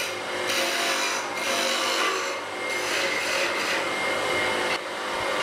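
Wood being turned on a small motor-driven lathe: a hand-held chisel scraping steadily against a spinning wooden disc, a continuous rasping cut with a faint steady tone from the running motor. The cut breaks off briefly a little before the end, then resumes.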